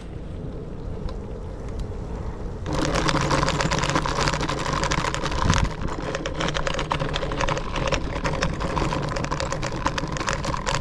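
Scooter riding, its motor humming steadily with rapid rattling clicks. The sound gets suddenly louder about three seconds in and stays that way.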